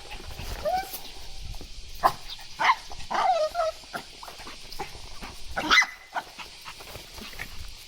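Small dog whining and yipping, a series of short calls that fall in pitch, the grumbling of a dog complaining.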